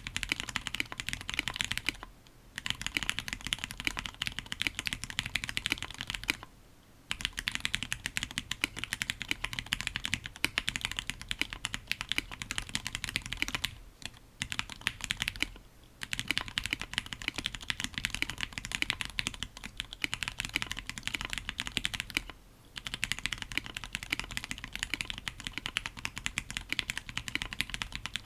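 Octagon V3 custom mechanical keyboard with Tealios V2 linear switches (lubed with Krytox 205g0) on an FR4 plate, typed on quickly and continuously, a fast run of key clicks breaking off briefly about five times.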